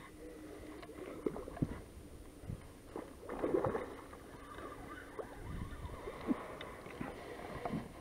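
Water splashing and sloshing as a hooked pike thrashes at the surface beside the boat, with the loudest splash about three and a half seconds in.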